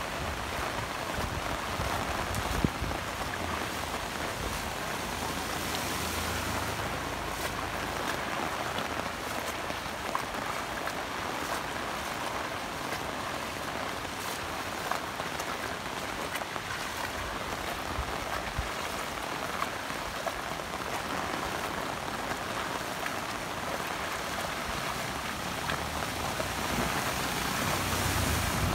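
Steady rain falling on a wet, flooded street: an even, constant hiss.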